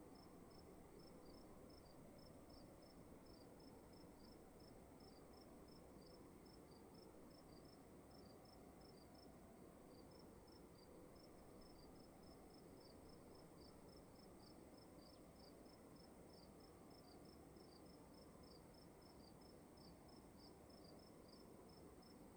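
Faint crickets chirping over a low, steady hiss: rapid, evenly repeated chirps with a short pause about ten seconds in, and a steady high-pitched trill behind them.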